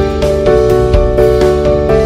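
Background music: held chords that change in steps, with no other sound standing out.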